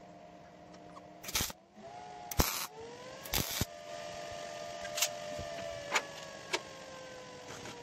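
Three short crackling bursts of MIG tack welding on a steel cart frame, the middle one the loudest, followed by a few sharp metallic clicks and knocks.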